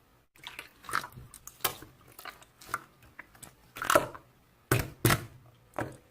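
A run of irregular, sharp crunching clicks and knocks, with the loudest ones about four to five seconds in.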